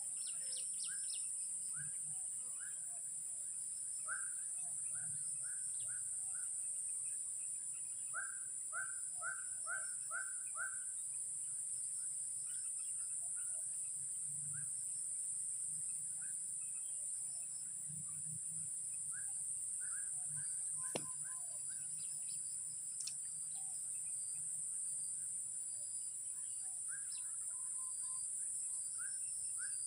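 Outdoor ambience: a steady high insect drone, with a bird calling in runs of short, quick repeated chirps, several notes a second. A single sharp click sounds about two-thirds of the way through.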